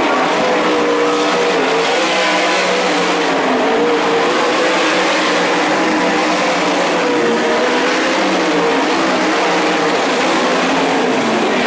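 A pack of 410 winged sprint cars racing on a dirt oval, their methanol-burning V8 engines running hard. Several engine notes overlap, wavering up and down in pitch as the cars work through the turns.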